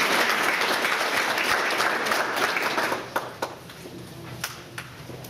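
Audience applauding in a meeting room, the applause dying away about three seconds in to a few last scattered claps.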